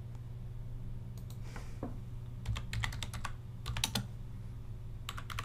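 Computer keyboard being typed on while editing text: scattered keystrokes in small groups, breaking into a rapid run of keystrokes near the end, over a low steady hum.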